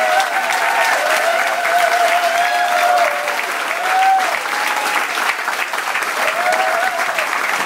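Audience applauding, with continuous clapping and cheering voices held over it.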